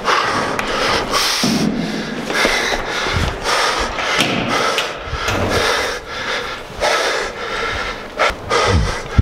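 A man breathing hard close to the microphone, in heavy repeated panting breaths from sprinting up eleven flights of stairs, with clothing and a cardboard box rubbing and rustling.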